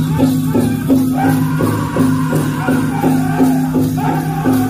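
Powwow drum group playing a chicken dance song: a steady, fast beat of about four strokes a second on the big drum, with men singing in high voices that come in about a second in. A jingling, shaker-like sound runs along with the beat.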